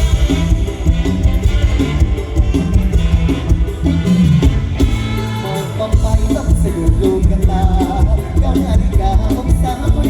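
Loud stage-show band music in the Isan mor lam style, with a heavy, driving drum and bass beat; a higher melodic line joins in about six seconds in.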